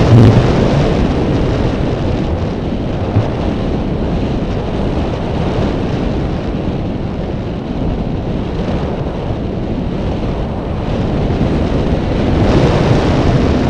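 Wind rushing over the microphone of a camera riding on a fixed-wing RC drone in flight: a loud, steady rush of noise with no clear engine tone. It is loudest at the start, eases after a couple of seconds and swells again near the end.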